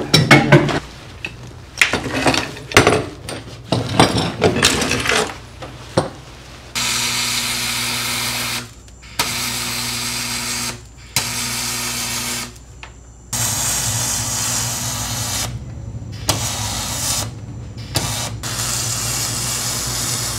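MIG welding aluminum plate: the arc hisses and buzzes steadily in about seven runs of one to two seconds with short breaks. It is preceded by a few metallic clicks and knocks as the clamp and welding gun are set.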